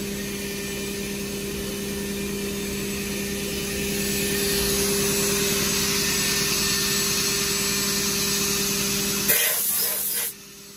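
Fanuc Robodrill CNC mill's spindle and end mill cutting aluminium at high feed in a light adaptive (trochoidal) clearing pass. It gives a steady tone with a hiss of cutting, growing louder about four seconds in, then breaking off abruptly near the end.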